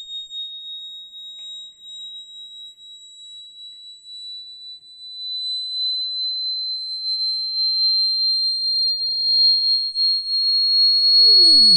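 A high, pure sine tone played through a brass Chladni plate and exciter, rising very slowly in pitch as part of a frequency sweep. It gets louder over the second half and picks up extra overtones near the end.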